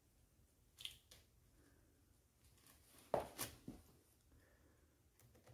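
Near silence: room tone, broken by a faint tick about a second in and a couple of brief soft noises about three seconds in.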